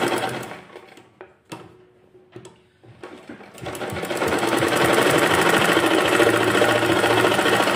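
Domestic sewing machine stitching, slowing to a stop within the first second. After a pause of a few seconds with a couple of small clicks, it starts again and runs steadily. The pause is where the fabric is pivoted at the point of a V-shaped seam.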